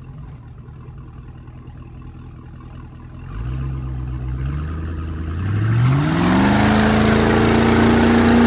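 Speedboat engine idling low, its note stepping up about three seconds in, then revving and climbing in pitch for about a second before holding a steady higher note at speed. A rush of water spray builds along with the speed-up.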